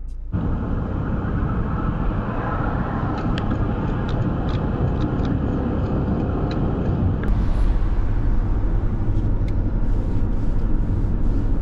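Mercedes-Benz Vito van being driven: steady engine and road rumble, which grows louder and deeper about seven seconds in, with a few faint ticks.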